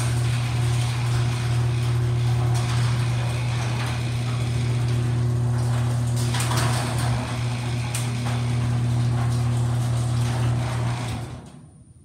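LiftMaster garage door opener running as a metal sectional garage door rolls up. A steady low motor hum with rattling over it, winding down near the end as the door reaches the top.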